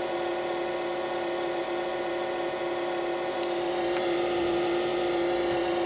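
GE PFE29PSDCSS refrigerator's fresh food drawer fan assembly running with a steady, fairly loud hum made of one tone and its overtones. It is the abnormal noise of a fan-assembly fault that has come back on a two-week-old replacement unit.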